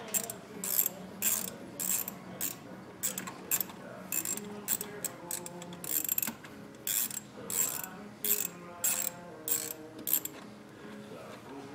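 Small hand ratchet with an extension and 10 mm socket clicking in short, even bursts, about two a second, as it is swung back and forth to back out a thermostat housing bolt.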